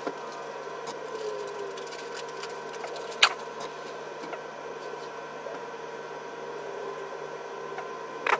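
A motorized line-spooling machine runs steadily, winding braided fishing line onto an Avet HX Raptor conventional reel, as a constant hum of several steady tones. A sharp click comes about three seconds in and another near the end.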